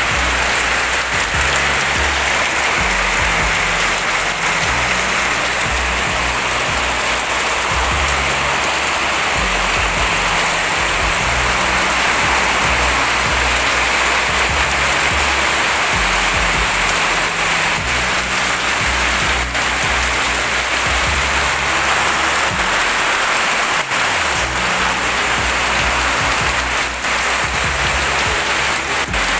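Steady hiss of heavy rain falling, with background music and a stepping bass line underneath.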